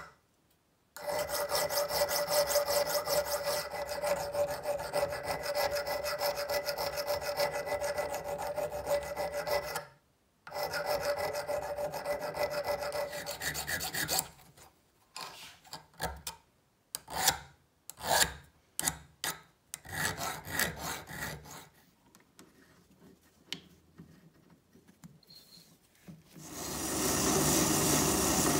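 A hand file rasps back and forth across the steel jaw of a 1950s HAZET open-ended wrench held in a bench vise, in fast continuous strokes with a ringing tone from the metal. About halfway through it slows to separate single strokes. Near the end a steady hiss starts: an abrasive drum spinning in a drill press.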